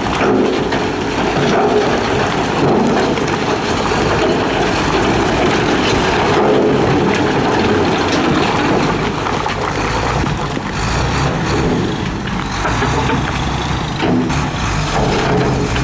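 Heavy diesel construction machinery working, with steady engine noise under a broad rushing noise.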